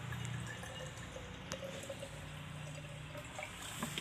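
Water being poured from a plastic bottle into a glass jar, a faint steady pouring sound.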